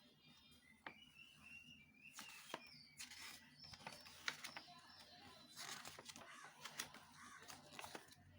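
Faint scattered clicks and short rustles, like small parts and packaging being handled, with birds chirping in the background.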